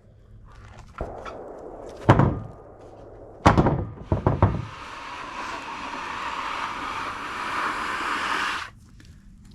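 Heavy wooden thunks of sawn lumber being handled, four knocks in all, the first about two seconds in and the last three close together, followed by about four seconds of steady scraping that cuts off near the end.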